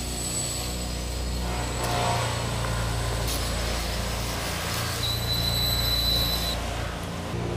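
Hobby-built quadcopter's electric motors and propellers buzzing as it hovers low and then sets down on the grass, the hum shifting in pitch a few times. A thin high whine joins for about a second and a half, around five seconds in.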